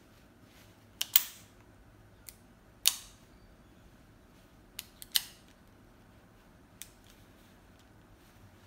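Sharp metallic clicks of a double-action revolver's action being worked by hand: about seven clicks at uneven intervals, some in quick pairs.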